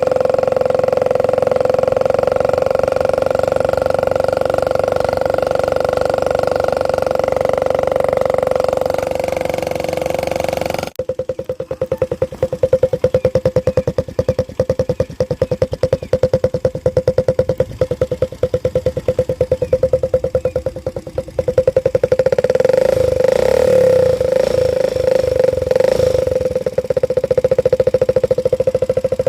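Engine exhaust running at a steady raised speed, then about eleven seconds in suddenly dropping to a slower run with distinct, separate exhaust pulses. About eight seconds before the end it picks up again and runs louder.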